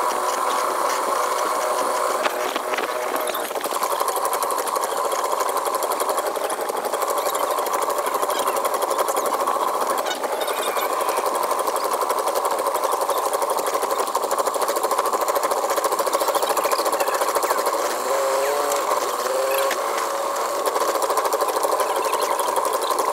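Long-tail boat engine running steadily under way, played back sped up so that its beat comes very fast and high, like a sewing machine.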